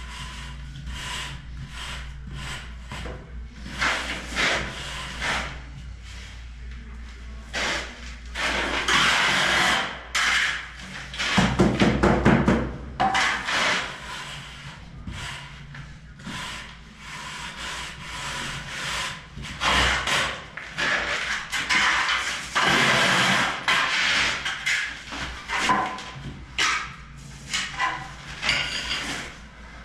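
Metal straightedge and trowel scraping over wet sand-cement mortar in irregular strokes of a second or two, screeding the mortar bed of a shower floor level.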